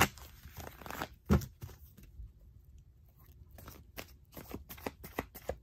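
A tarot deck being shuffled by hand: a sharp knock about a second in, then after a pause a quick run of crisp card slaps, about six a second.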